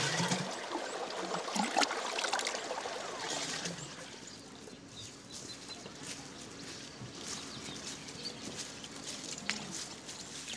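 Water trickling and splashing as a clay water pot is filled at a spring, loudest in the first few seconds. It then gives way to faint outdoor ambience with a few short bird chirps.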